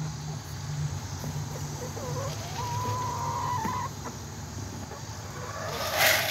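A chicken calling: one drawn-out note that rises and then holds steady for about a second and a half, a couple of seconds in. A brief loud rustle comes near the end.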